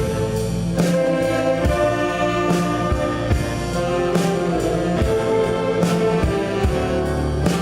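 A saxophone orchestra playing a slow tune live, many saxophones holding full sustained chords over a steady beat that falls a little under once a second.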